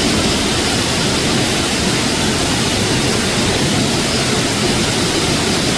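Waterfall at Natural Bridge: falling water making a loud, steady rushing noise.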